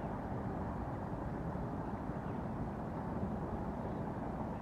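Steady outdoor background rumble, an even noise with most of its weight in the low range and no distinct events.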